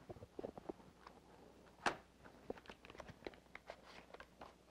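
A cardboard product box being opened and handled: a scatter of light scrapes and clicks, with one sharper snap a little under two seconds in.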